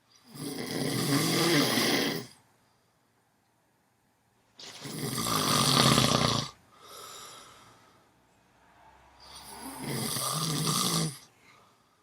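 A sleeper snoring a bit loud: three long snores, each about two seconds, roughly four to five seconds apart, with a softer breath just after the second.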